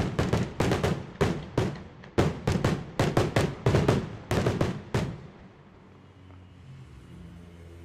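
Aerial fireworks shells bursting overhead in a rapid series of sharp bangs, about three or four a second, that stops about five seconds in. A faint low steady hum follows near the end.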